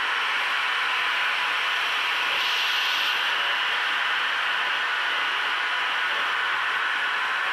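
Handheld corded electric power tool running steadily as its bit grinds and carves into a bonsai trunk, with a brief sharper hiss about two and a half seconds in.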